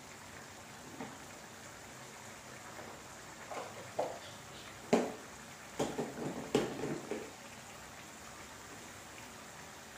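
Thick tomato sambal with boiled eggs simmering in a wok while the gravy reduces. Its bubbles pop now and then, most sharply about five seconds in and in a short cluster just after, over a steady faint hiss.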